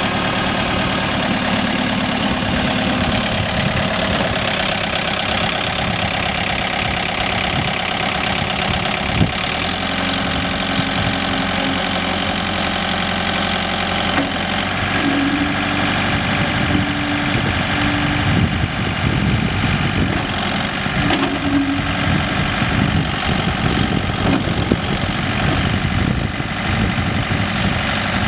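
A 2008 John Deere 110 backhoe loader's diesel engine running steadily at idle. Short, steady higher tones come and go over it in the middle, with one sharp knock about nine seconds in.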